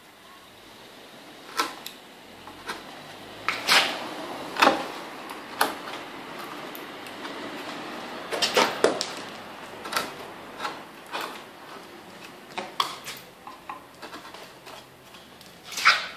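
Hand carving tools (a pointed tool and a chisel) scraping and clicking against a carved wooden picture frame: irregular short scrapes and taps, with a few longer scraping strokes around four and nine seconds in.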